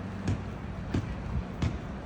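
Footsteps of someone walking at an even pace, three steps about two-thirds of a second apart, over a steady low background hum.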